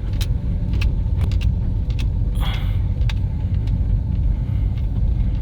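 Car driving, heard inside the cabin: a steady low road and engine rumble with scattered sharp rattling clicks and a brief rustle about halfway through. The driver suspects the rattle comes from a door that is not fully shut.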